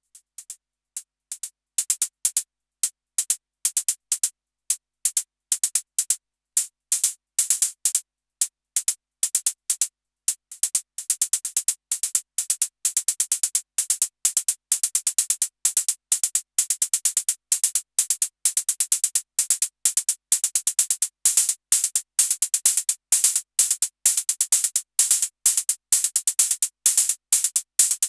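Analog synthesized hi-hats from a Patching Panda HATZ module playing a steady ticking pattern. A closed hi-hat fades up in the first two seconds, and about ten seconds in an open hi-hat is blended in, making the pattern denser.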